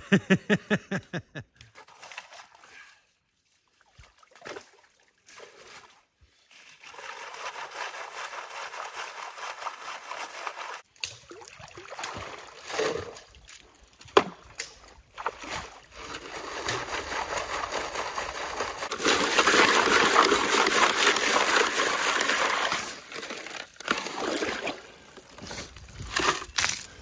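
Wet gravel and gray clay being shovelled out of an icy, water-filled hole and worked through a metal classifier screen into a pail: water sloshing and splashing with scrapes and knocks of shovel and stones, loudest for a few seconds about two-thirds of the way through.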